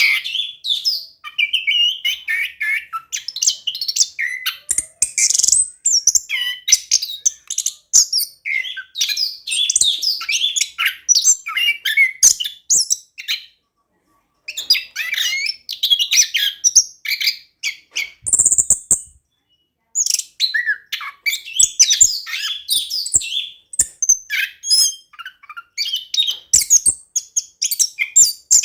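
Orange-headed thrush (anis kembang) singing persistently: a fast, varied, rolling song of quick phrases, broken by two short pauses near the middle.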